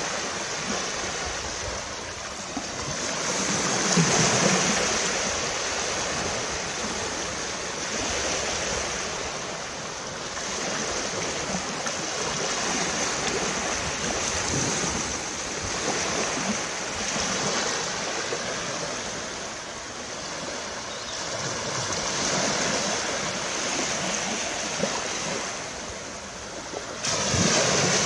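Low surf breaking and washing up a flat sandy beach, a steady rush that swells and fades every several seconds, with a louder surge near the end.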